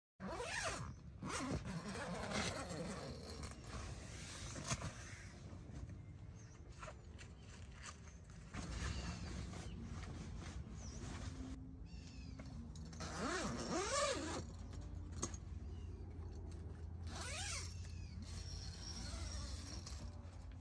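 A cotton canvas tent door being opened and rolled back by hand: the fabric rustles, with a zipper and short scrapes and knocks. A couple of short sliding-pitch sounds come about 13 to 14 seconds in and again near 17 seconds, the louder one around 14 seconds.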